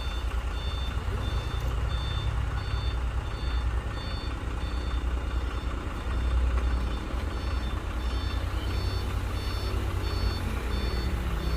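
A truck's reversing alarm beeping steadily, about three beeps every two seconds, over the low rumble of a running diesel engine.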